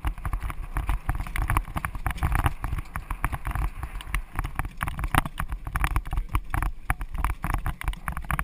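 Pony-drawn marathon carriage heard from on board as it trots and turns through an obstacle: a continuous jumble of carriage rattles and knocks with the pony's hoofbeats, over a steady low rumble of the wheels on the ground.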